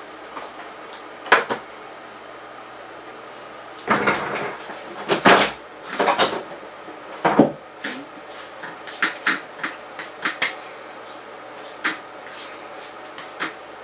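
Handling noise: a storage box being pulled from under a bed and a small wooden block being picked up and moved. There are a couple of knocks, then a burst of clattering and scraping from about four to seven and a half seconds in, then scattered light clicks and taps.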